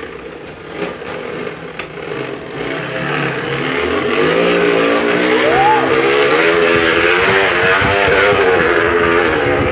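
A noisemaker fitted to a bicycle wheel, buzzing like a motorbike as the bike is ridden. Its pitch wavers with the wheel's speed, and it grows louder over the first few seconds as the bike speeds up.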